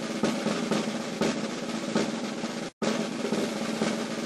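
A snare drum roll played as background music. It cuts out for an instant about two and a half seconds in, then starts again.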